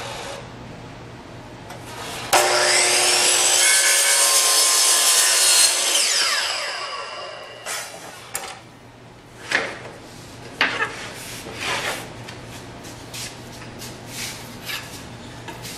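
DeWalt compound miter saw starting suddenly about two seconds in and running for a few seconds while its blade cuts through wooden crown molding. It then winds down with a falling pitch. A few light knocks follow as the cut wood is handled.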